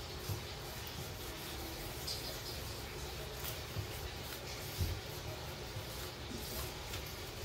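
Quiet kitchen room tone with faint handling noise from hands working at the counter, and two soft low thumps: one about a third of a second in and one near five seconds in.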